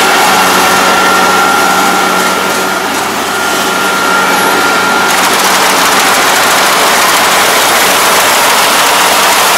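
Kubota ARN460 combine harvester working close by. Its diesel engine and cutting and threshing machinery run with a loud, steady drone and a thin high whine on top as it cuts lodged rice.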